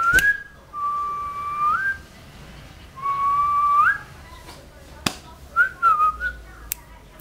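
A person whistling: a short note, then two long steady notes that each slide up in pitch at the end, then a few brief warbling notes. A single sharp click about five seconds in.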